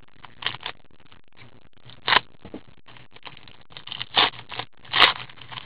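Plastic wrapper of a trading-card pack crinkling and rustling in short, irregular crackles as gloved hands open it and handle the cards.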